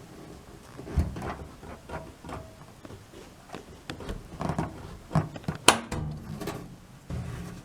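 Irregular knocks, clunks and clicks of clothes-dryer parts being handled and worked on by hand, with one sharp click a little under six seconds in.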